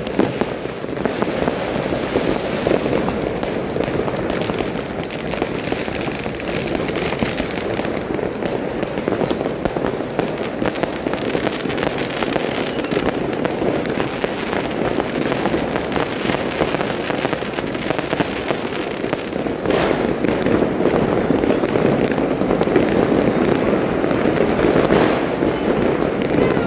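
Consumer firework cake (multi-shot battery) firing a rapid, unbroken string of launches, bangs and crackling bursts. It grows louder about twenty seconds in, with a few sharper bangs standing out.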